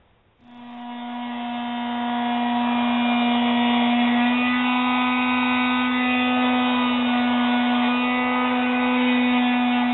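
A sustained low synthesizer drone on one note that swells in about half a second in and then holds steady, with higher overtones that shift a few times.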